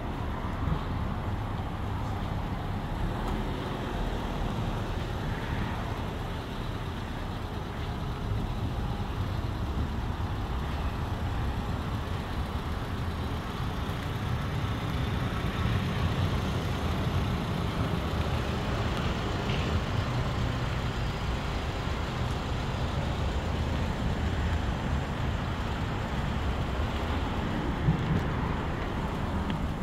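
Steady low rumble of road traffic, with one sharp click near the end.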